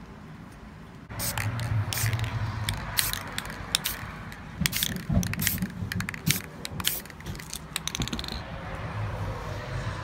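Aerosol spray paint can spraying in a series of short hissing bursts, ending in a quick run of rattling clicks.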